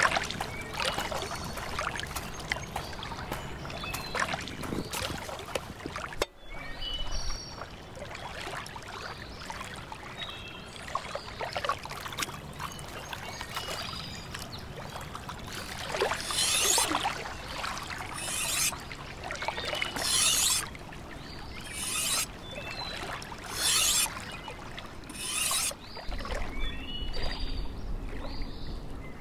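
Footsteps on a pebble riverbank at first. Later, a knife drawn across a wet two-sided whetstone in about six long scraping strokes, one every second or two.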